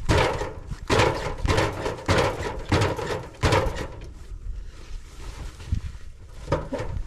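Footsteps: about six evenly spaced steps over the first four seconds, then a few quieter scuffs.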